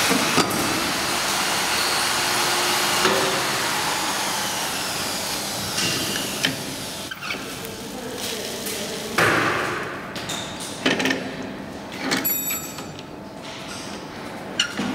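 Clear plastic shrink film rustling and crackling as it is pulled off the roll and threaded by hand through a shrink-wrap machine's feed rollers. The first half is a steady rustle, and the second half has a few sharp clicks and knocks.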